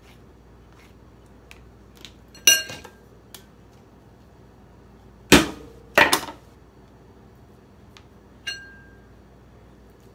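A metal spoon clinking against a ceramic bowl while avocado flesh is scooped out, with light scraping ticks in between. There are ringing clinks about two and a half seconds in and near the end, and two louder sharp knocks a little past halfway.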